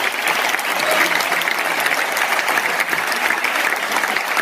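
Applause from a large crowd in a hall: many hands clapping at once, dense and steady.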